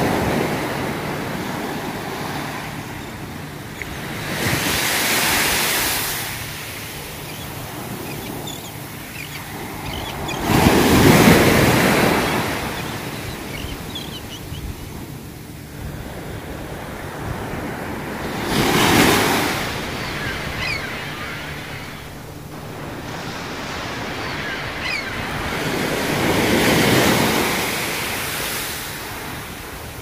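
Small sea waves breaking and washing up a sandy beach, each surge swelling and fading, one every five to eight seconds; the loudest comes about eleven seconds in.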